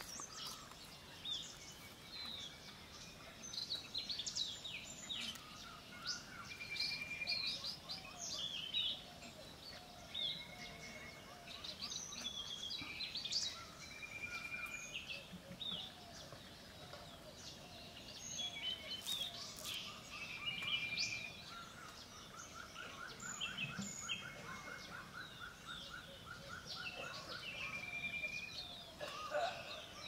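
Several small songbirds singing and calling in a forest: many short high chirps and whistled notes overlapping, with a long fast trill from about two-thirds of the way through.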